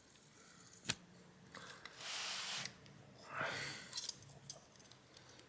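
Laptop heatsink-and-fan cooler being handled and lined up over freshly pasted chips: a sharp click about a second in, two short scraping rubs, then a few light clicks.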